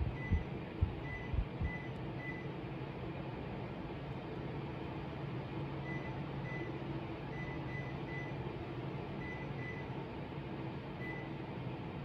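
Short, faint high electronic beeps, one for each press of the timer button on a Sharp room air conditioner's remote as the on-timer hours are stepped through. There are four in the first two and a half seconds, then a run of about nine from about six seconds in, over a steady low hum. A few soft button clicks and handling knocks come in the first two seconds.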